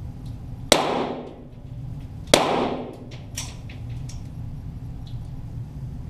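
.22 Walther GSP target pistol shots: two loud cracks about a second and a half apart, each ringing out in the range, followed by several faint ticks.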